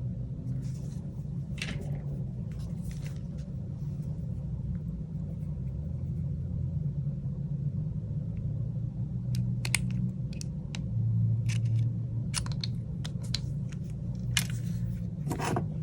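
A steady low hum runs throughout, with scattered light clicks and taps from the second half onward: small parts being handled as the SIM card tray is ejected and pulled from a Samsung Galaxy A21's frame.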